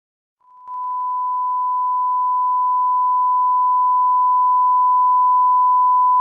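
Bars-and-tone test signal: a single steady, pure test tone starting about half a second in, fading up quickly and then growing slowly louder.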